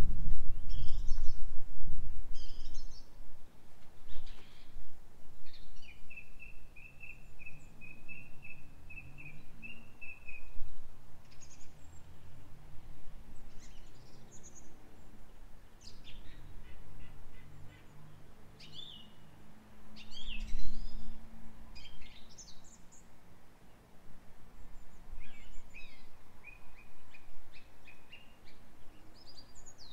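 Small songbirds singing: scattered high chirps and two drawn-out trills, the first lasting about four seconds. Wind rumbles on the microphone at the start and again around twenty seconds in.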